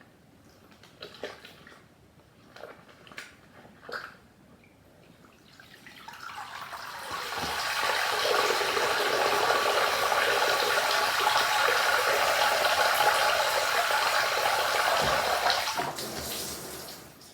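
A few drips and small splashes from a water-soaked plush toy, then a bath tap turned on, water running steadily for about eight seconds to rinse it before being shut off near the end.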